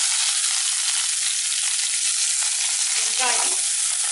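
Fresh curry leaves sizzling steadily in hot oil with mustard seeds and urad dal in a stainless steel kadai. This is the tempering (tadka) at the start of a South Indian rice dish.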